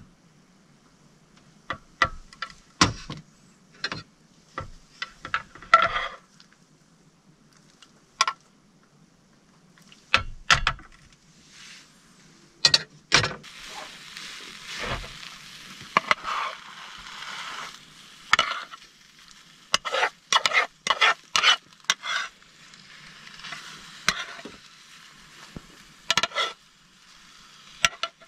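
Beaten egg frying in a rectangular tamagoyaki pan on a portable gas stove as a rolled omelette is made, with repeated sharp taps and scrapes of a utensil against the pan. A sizzle comes in about twelve seconds in and runs on until near the end, under the clicks.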